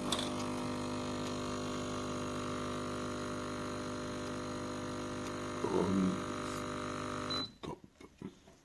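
CASABREWS espresso machine's vibration pump buzzing steadily, with a brief gurgle about six seconds in. The pump cuts off suddenly near the end, followed by a few light clicks.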